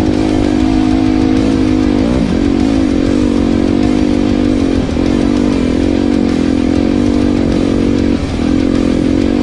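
Yamaha YZ250F dirt bike's single-cylinder four-stroke engine running steadily under way. The pitch dips briefly and recovers about two, five and eight seconds in.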